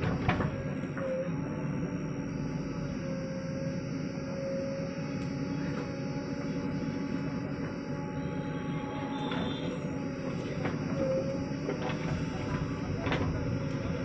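JCB 3DX backhoe loader at work: its diesel engine running steadily with a hydraulic whine that wavers in pitch as the arm moves. A few sharp knocks of the bucket come near the start, around nine seconds and around thirteen seconds.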